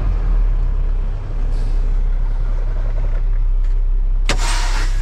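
Semi truck's diesel engine idling with a low rumble inside the cab. About four seconds in, the dash parking-brake valve is pulled and a sharp burst of air hisses out as the spring brakes set.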